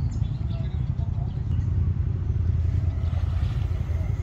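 Off-road vehicle engine running steadily at low revs: a continuous deep rumble.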